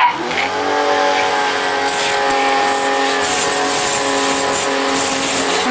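Agaro Grand 1500-watt electric pressure washer spinning up and then running steadily, its motor-driven pump humming at a constant pitch. The high-pressure water jet hisses as it sprays a car's bonnet.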